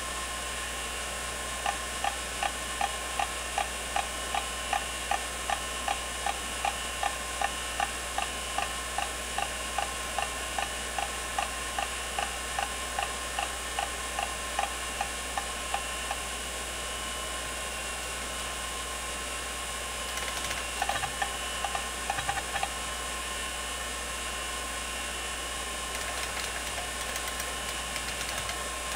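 IBM 0665-53 MFM hard drive running, its spindle giving a steady hum and whine while the head actuator clicks evenly about three times a second as the Speedsys benchmark seeks. The clicking stops about 16 s in, and a short flurry of seek clicks about 20 s in marks chkdsk reading the disk.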